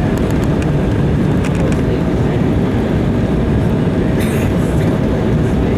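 Steady low rumble of engine and airflow noise inside the cabin of an Embraer E190 airliner during its landing, with a few light clicks and a short hiss about four seconds in.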